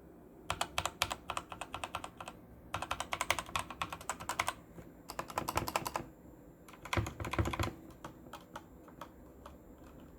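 Performax-G Xargon mechanical keyboard with Outemu red switches being typed on fast, in four quick bursts of keystrokes followed by a few single key presses.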